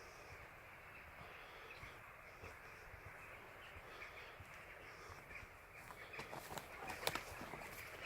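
Faint outdoor ambience with birds calling in the distance. From about six seconds in there are a few light clicks and knocks, with one sharper click just after seven seconds.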